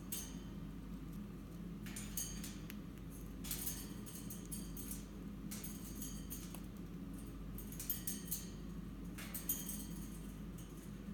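Golden-mantled eastern rosella cracking and husking seeds taken from an open hand, heard as several short clusters of dry, crisp clicking, over a steady low hum.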